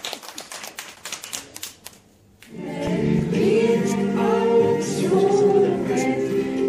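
Hand clapping for the first two seconds, a short pause, then a group of voices begins singing a song together and keeps on.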